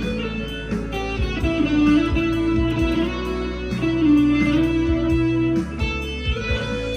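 PRS SE 245 electric guitar played through overdrive, a lead line in B minor with held notes and string bends, over a backing track with drums.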